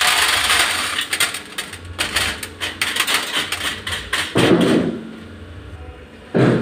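Coarse aggregate stones rattling and clattering as the fraction retained on a metal test sieve is tipped out into an enamel tray on a weighing scale. The clatter is a dense run of clicks for about four seconds, then dies down.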